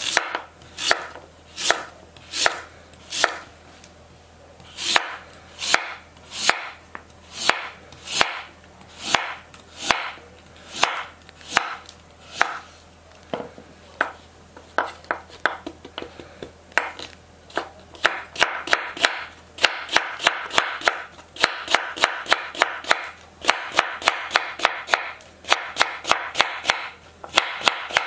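Chef's knife chopping through a Korean radish onto a wooden cutting board, each stroke a crisp separate chop. The strokes come a little over one a second at first, then speed up to several a second about two-thirds of the way through as the slices are cut into thick strips.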